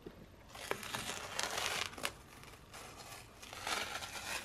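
Painter's tape being peeled off a painted baseboard: a crackling, rasping peel in several drawn-out pulls, with a few sharp ticks between them.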